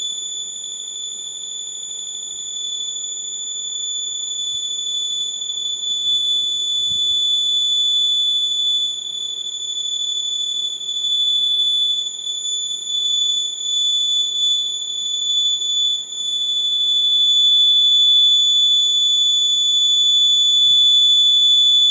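Electronic buzzer giving one continuous high-pitched tone that holds a steady pitch, its loudness wavering slightly.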